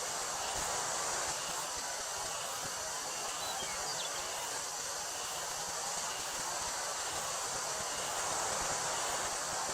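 Wind blowing through a wheat field in a steady rustling hiss, with summer cicadas droning in a steady high band. A few faint short chirps come about three and a half seconds in.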